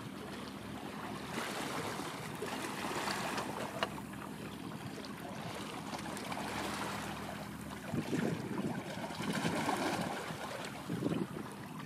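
Waterside ambience: a steady wash of wind and lapping water, with a faint steady low hum for the first eight seconds. Louder irregular splashes and surges come from about eight seconds in.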